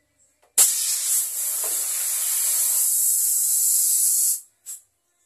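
Compressed-air spray gun spraying furniture varnish: a loud, steady hiss that starts suddenly, runs for nearly four seconds and cuts off, then a brief second burst.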